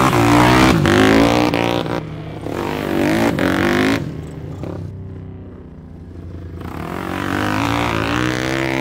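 Sport ATV engine revving up and down in quick rises and falls of pitch. It drops away about four seconds in, then climbs steadily again near the end.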